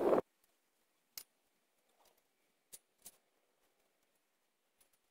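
A loud sound cuts off abruptly right at the start, then near silence broken by a few faint, isolated clicks.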